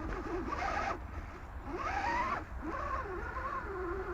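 Electric motor and gear drive of a radio-controlled scale crawler truck whining as it is driven. The pitch rises twice as the throttle is opened, about half a second in and again near two seconds, and settles back to a steady lower whine between.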